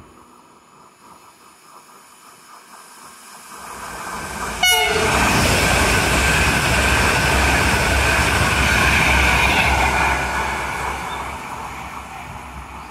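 Alstom Pendolino ED250 electric high-speed train passing through the station. A rumble builds as it approaches, and a short horn blast sounds as it arrives, about four and a half seconds in. Then comes a loud rush of wheels and air for about five seconds, fading as the train recedes.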